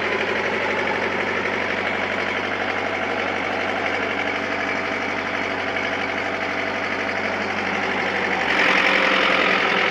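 Diesel engine of a Kato HD-250 excavator idling steadily with a knocking note. Near the end it grows louder and harsher.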